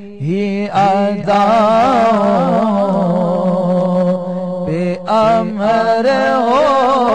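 A man singing a drawn-out, wavering melody of an Urdu devotional song into a microphone over a steady low drone. The voice comes in about a quarter second in and pauses briefly near the five-second mark.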